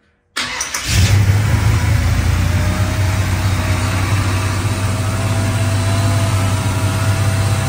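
A carbureted GM Performance 350 small-block V8 crate engine cranks briefly and catches about a second in. It then runs steadily at a high cold fast idle, set too high by the fast-idle cam ("crazy high").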